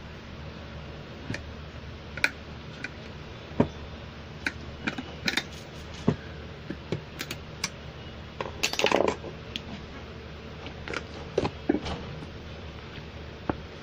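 Scattered sharp metallic clicks and taps from a vacuum brake booster being dismantled by hand, a steel rod working against the piston hub and the metal shell. There is a denser, louder clatter about nine seconds in, as the piston and diaphragm assembly comes free.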